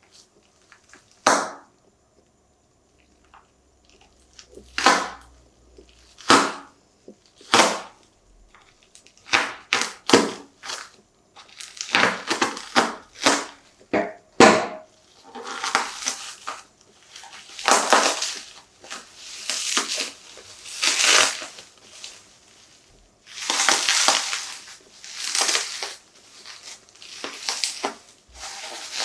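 Packaging and a phone case being handled during an unboxing: a series of sharp clicks and taps for the first ten seconds or so, then longer rustling and scraping of the packaging.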